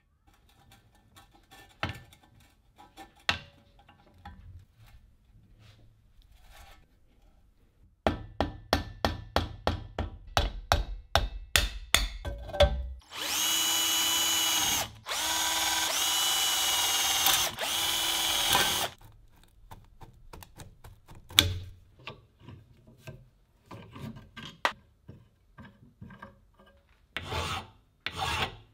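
An electric drill runs in three bursts about halfway through, drilling into the metal of a 1929 Alexanderwerk grater. Small handling clicks and a quick run of clicks come before it, a single sharp knock after it, and quick scraping strokes near the end.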